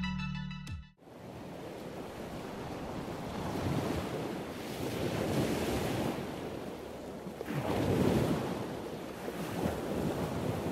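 Ocean waves washing in, surging and falling back several times, after the tail of background music stops about a second in.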